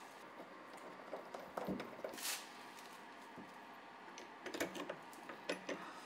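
Faint scattered clicks and light taps as a hand handles a stainless-steel powder-coated door hinge on a Jeep Wrangler JK door. There is a short rustle about two seconds in and a quick run of light clicks near the end.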